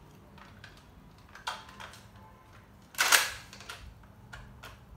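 Pump-action Nerf dart blaster: plastic clacks of its priming slide about a second and a half in, then one dart fired with a short, sharp puff about three seconds in, which is the loudest sound.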